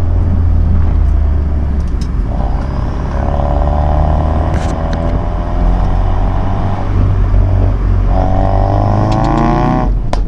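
Ford Focus RS Mk3's 2.3-litre turbocharged four-cylinder running with a steady low drone. Twice a higher tone joins it and climbs slowly, from about two seconds in and again near the end.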